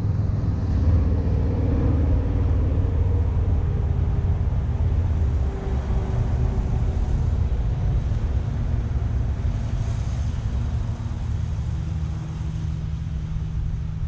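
Small gasoline engine of a Woodland Mills HM126 portable bandsaw mill running steadily; its note shifts slightly about eleven seconds in.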